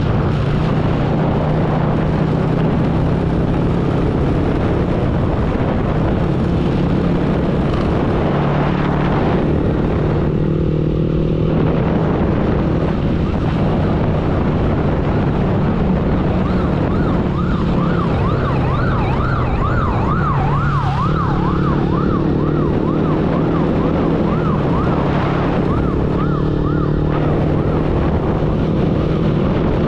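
Motorbike engine and road noise from riding in traffic, with the engine note shifting now and then. About halfway through, an emergency siren starts a fast up-and-down wail, about three swings a second, that lasts roughly ten seconds.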